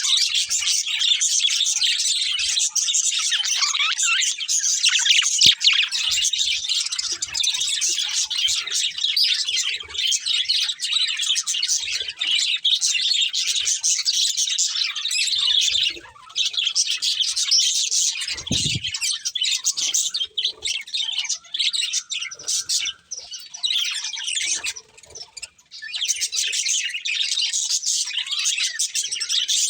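Budgerigars chirping in a steady, dense, high-pitched chatter, with brief lulls about halfway and again past two-thirds through. A single short low thump comes a little after the middle.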